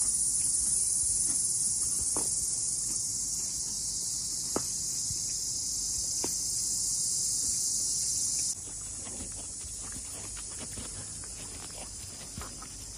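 Steady high-pitched chorus of insects, with a few sharp clicks. About eight and a half seconds in it drops suddenly to a fainter level, with light irregular taps beneath.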